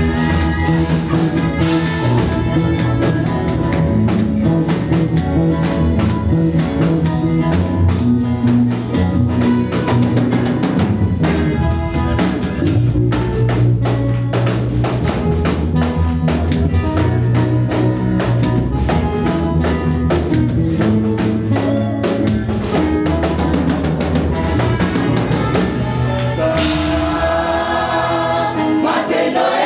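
Live gospel band playing an upbeat instrumental groove, with a drum kit keeping a steady beat over a bass line. Near the end the drums thin out and the choir's voices come in.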